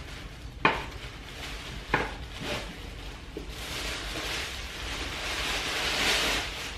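Shoe packaging being handled and opened: two sharp taps about half a second and two seconds in, then paper or wrapping rustling that grows louder toward the end.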